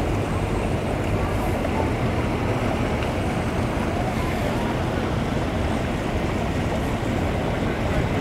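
Boat engine running steadily, with wind noise on the microphone.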